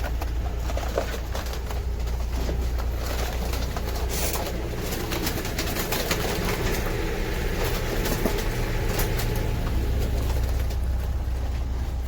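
Confiscated green-winged saltators (trinca-ferro) calling and moving about, with frequent small clicks over a steady low rumble.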